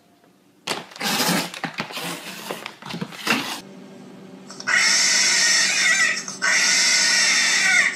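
A few seconds of harsh, noisy rasping, then a cat yowling loudly while being mounted by another cat: long drawn-out cries, two of them over a second each with a short break between.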